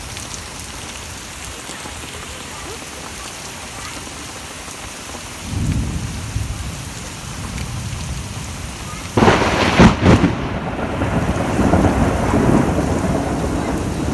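Steady rain falling through a thunderstorm. About five and a half seconds in a low rumble of thunder swells up, and just after nine seconds a sudden, loud crack of thunder breaks, the loudest moment, rolling on in rumbles.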